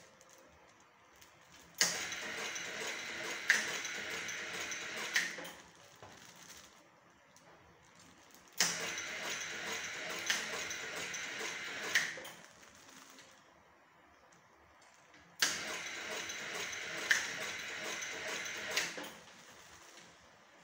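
Semi-automatic sachet fill-and-seal machine running three cycles. Each cycle starts suddenly with a click, holds a steady hiss with further clicks about every second and a half for about three and a half seconds while a sachet is filled with granulated pepper and another is sealed, then stops.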